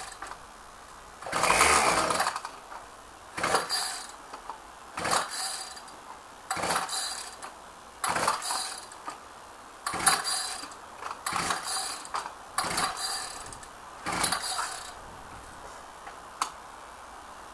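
Ryobi two-stroke engine being pull-started with the choke off: about nine quick yanks of the recoil starter, each a short whirr, with the engine not catching. The owner puts the hard starting down to stale fuel.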